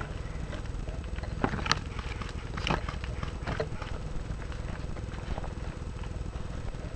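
Rustling and footsteps through dry leaf litter and brush, with a few sharp crackles of snapping twigs and leaves, over a steady low rumble of handling noise on a gun-mounted microphone.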